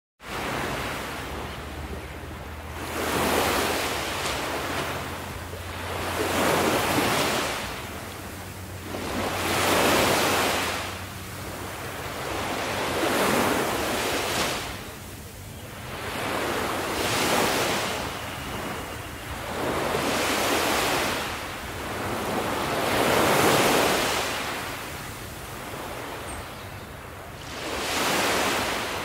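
Ocean surf washing onto a shore, starting suddenly. About eight waves swell and fade, one every three to four seconds.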